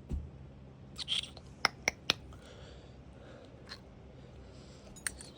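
Small clicks and taps of fan parts being handled and fitted back together, with three sharp clicks close together about two seconds in and a few softer knocks around them.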